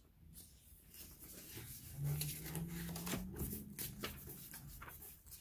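Paper rustling and crinkling as pages of a paperback book are turned, with a soft low hum from about two seconds in lasting about two seconds.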